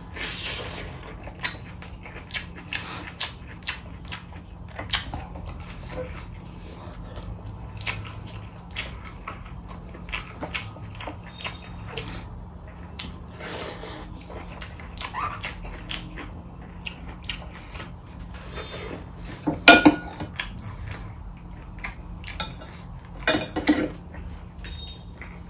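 Eating by hand from a stainless steel plate: chewing and mouth noises with fingers scraping and tapping rice against the metal plate, many small clicks throughout. Two louder clinks of dishes about two-thirds of the way in and near the end, as the glass curry bowl and its spoon are handled. A faint steady hum runs underneath.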